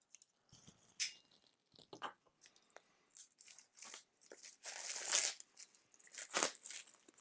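Clear plastic shrink-wrap being torn and peeled off a book's slipcase by hand, crinkling in irregular crackles, loudest about five seconds in.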